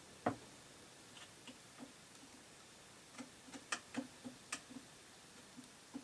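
Scattered light clicks and taps of tools and small parts being handled during a mechanism repair, with one sharper knock just after the start and a quick run of clicks in the second half.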